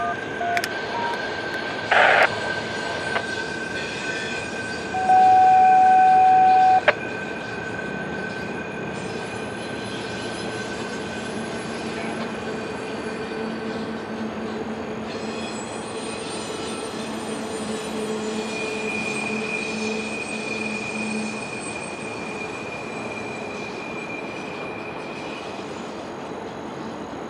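A train rolling past over the rails, its wheels squealing in thin, steady high tones. About two seconds in there is a short loud burst, and from about five to seven seconds a loud, steady single-pitched tone sounds.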